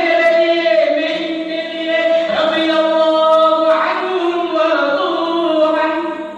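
Male voices singing an Arabic Islamic nasheed without instruments, in long drawn-out held notes that fade near the end.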